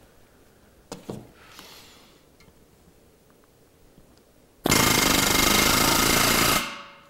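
Pneumatic rivet gun with a flush mushroom set hammering a countersunk rivet into aluminium sheet, one loud continuous burst of about two seconds near the end. A light knock comes about a second in.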